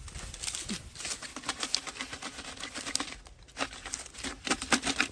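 Fresh green leaves rustling and crackling with many small snaps as a red ant leaf nest is pulled off the branches and crumpled down into a plastic bucket.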